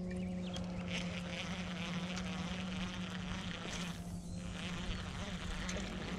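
A steady low buzzing hum that holds one pitch.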